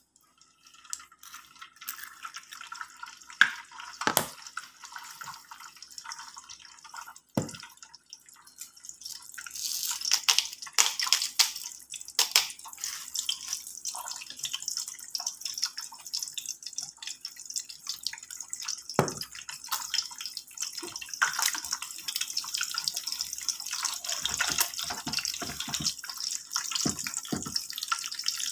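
An egg frying in hot oil in a pan, sizzling with frequent crackling pops. The sizzle grows louder and busier about ten seconds in.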